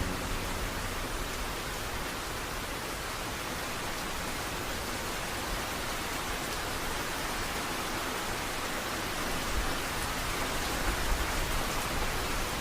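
Steady, even rain-like hiss with no tones in it, spread from low to high pitches, with a few faint pops near the end.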